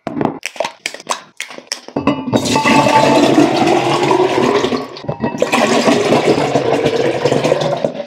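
Water pouring fast from two upturned plastic bottles into a tall glass, a heavy continuous gush that starts about two seconds in and dips briefly about five seconds in. Before the pour, a quick run of clicks and knocks comes from the bottles and glass being handled.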